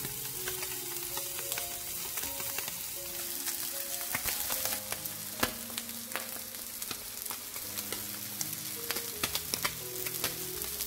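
Small whole sand eels pan-frying in hot oil in a nonstick pan, a steady sizzle full of sharp spitting crackles of oil as they crisp.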